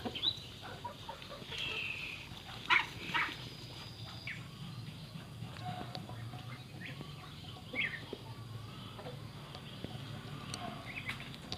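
Chickens, roosters and hens, giving short, scattered calls and squawks around a feed bowl, the sharpest two close together about three seconds in, over a steady low hum.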